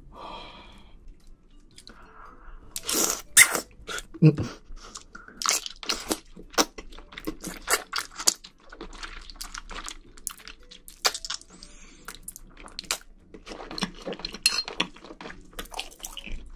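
Close-miked mouth sounds of someone eating wide Chinese glass noodles from a spicy braised seafood dish: wet chewing with many quick, sharp smacks and clicks, a few louder ones about three seconds in.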